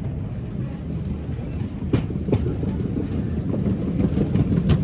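Airport terminal background: a steady low rumble, with a couple of sharp clicks or knocks about two seconds in and again near the end.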